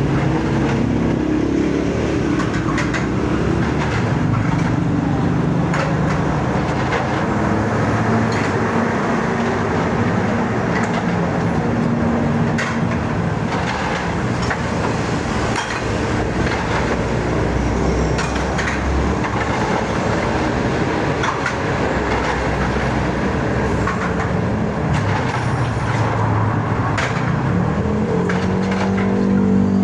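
An engine running steadily, its low hum shifting in pitch now and then, with a few faint clicks over it.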